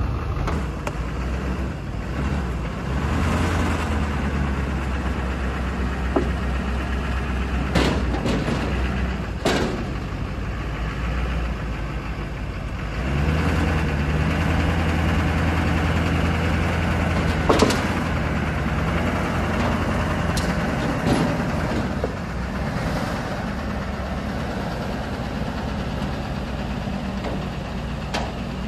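Duramax 6.6-litre V8 turbodiesel pickup engine running and pulling under load in two spells as the truck drives up steel trailer ramps, with a few sharp knocks along the way.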